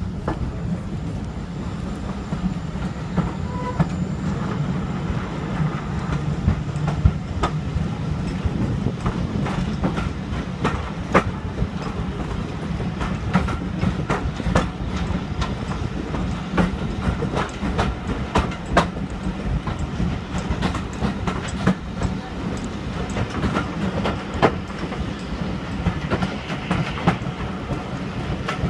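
Heritage railway passenger carriage running along the track: a steady low rumble from the wheels and bogies, with sharp, irregular clicks as the wheels pass over rail joints. Heard through an open carriage window.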